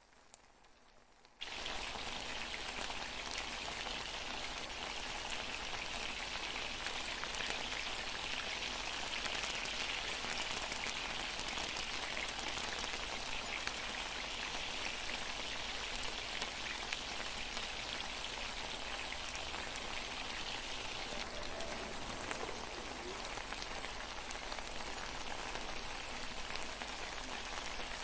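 Spiced tomato cooking liquid boiling hard in a non-stick pan, a steady bubbling and crackling hiss that cuts in suddenly about a second and a half in.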